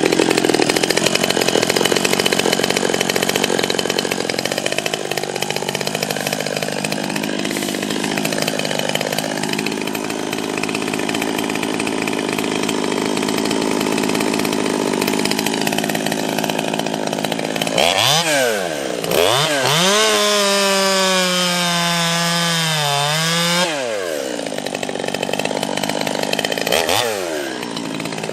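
Stihl two-stroke chainsaw with a 3/8 Pico chain cutting into a small tree, its engine pitch wavering as the chain bites. About 18 seconds in it revs up to a high, steady whine for several seconds, drops back into the cut, and revs up again briefly near the end.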